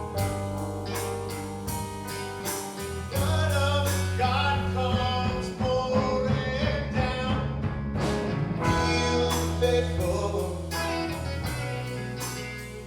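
Blues-rock band playing a passage between sung lines, with regular drum hits under held bass notes and a wavering melody line.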